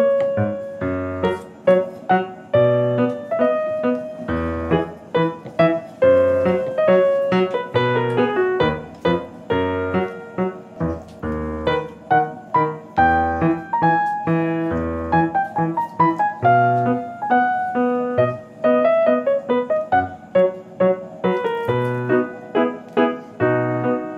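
Background piano music: a steady run of piano notes over a bass line.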